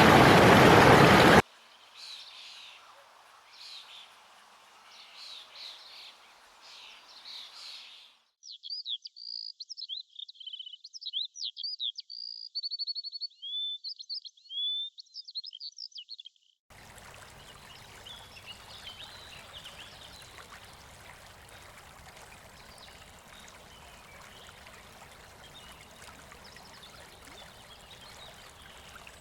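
Songbirds chirping and singing. The loud rushing noise at the very start cuts off abruptly. A clear phrase of quick chirps, whistles and trills follows with nothing under it. From just past the middle, a faint steady stream hiss carries on with occasional chirps.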